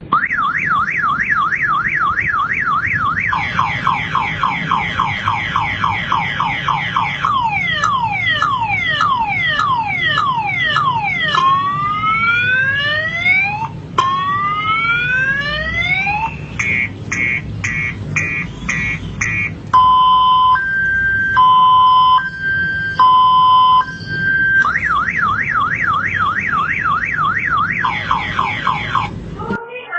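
Electronic car-alarm siren cycling through its tones. It starts with a fast up-and-down warble, then falling chirps, then slower rising whoops, a burst of rapid beeps, and a slow alternating two-tone beep, before returning to the warble near the end.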